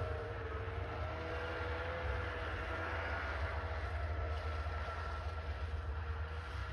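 Snowmobile engine running at a steady pace, heard as a droning whine whose pitch wavers slightly as it moves across the field.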